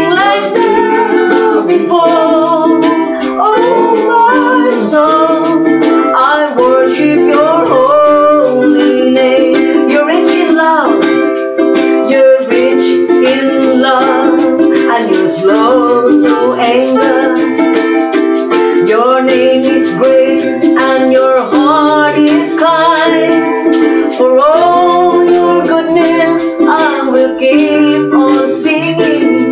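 Ukulele strummed to accompany singing voices in a worship song, with a hand-held shaker rattling along to the beat.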